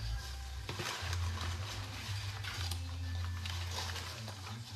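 Paper tickets rustling and shifting as a hand stirs through them inside a plastic jar, with small scattered clicks over a steady low hum.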